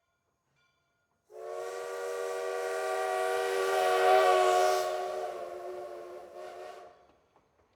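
A train's whistle blowing one long, steady blast that swells to its loudest midway and then fades out.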